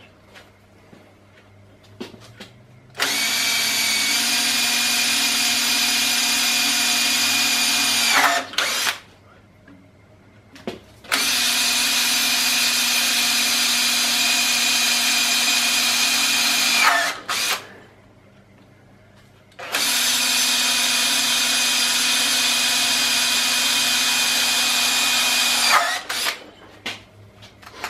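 Cordless drill boring three pilot holes into the cast iron head of a round-column mill-drill. Each run is a steady motor whine lasting five to six seconds and dropping slightly in pitch as it stops, with pauses of a few seconds between holes.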